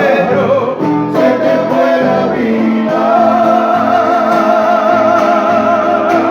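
Spanish-language song with a singer and guitar accompaniment: the singer finishes the last line and holds a long final note with vibrato from about halfway in.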